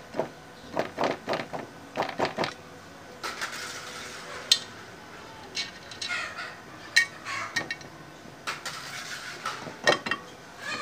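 Light metallic clicks and clinks of small engine parts being handled and turned on a motorcycle crankcase: a quick run of clicks in the first couple of seconds, then scattered single clicks.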